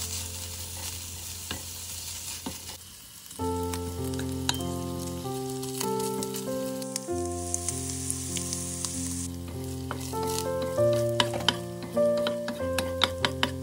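Chopped bacon sizzling in a frying pan over medium heat as it renders its fat, with a wooden spatula scraping and clicking against the pan as it is stirred. The clicks come thickest and loudest in the last few seconds. Background music with held notes plays over it.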